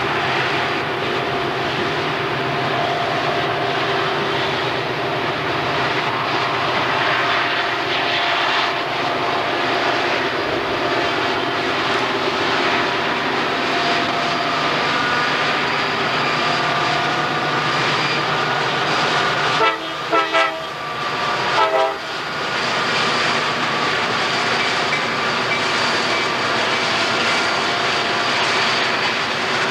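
Several diesel freight locomotives working hard upgrade, their engines running loud and steady under heavy load. About twenty seconds in, the locomotive horn sounds in a few short blasts followed by one more.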